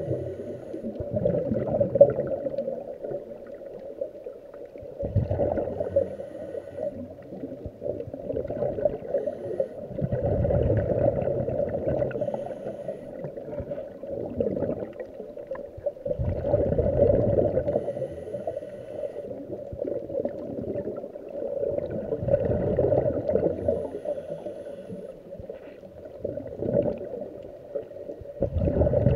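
Scuba diver breathing through a regulator underwater: exhaled bubbles gurgle and rumble in slow swells about every six seconds, five or six breaths in all, heard through the camera's waterproof housing.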